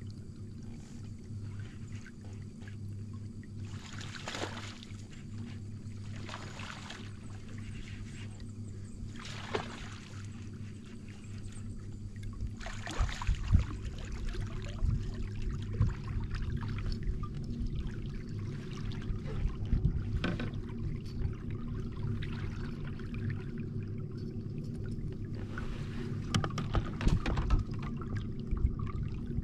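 Water sloshing and trickling against a kayak, with scattered louder splashes, more frequent in the second half, over a steady low hum.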